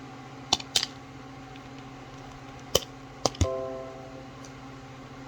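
A few sharp clicks and knocks as items are handled and set down: two close together, then three more, the last one ringing briefly. A steady low hum runs under them.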